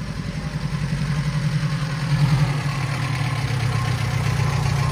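1947 Austin FL1 hire car's engine running as the car drives up a muddy lane, a low steady hum growing louder as it approaches.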